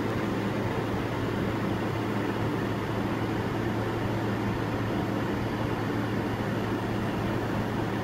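Steady background hiss with a low steady hum underneath, holding an even level with no distinct clicks or beeps.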